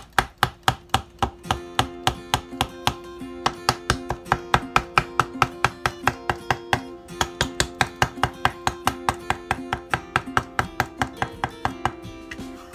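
Chinese cleaver mincing pitted pickled plums (umeboshi) on a plastic cutting board: rapid, even chops about four or five a second, stopping near the end. Acoustic guitar background music plays underneath.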